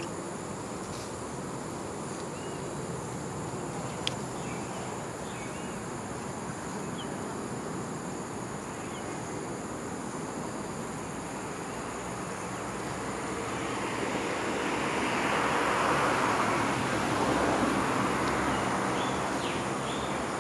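Outdoor ambience: insects droning steadily at a high pitch, with a few faint short chirps. In the second half a broad rushing noise swells for several seconds and then fades.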